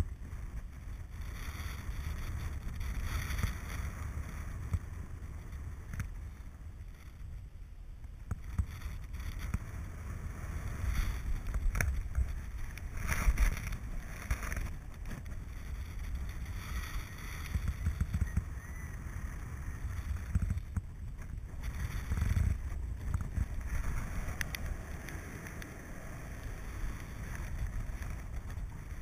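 Airflow buffeting the microphone of an action camera carried by a paraglider pilot in flight: a low rumbling wind noise that swells and dies back in gusts, with a few brief knocks.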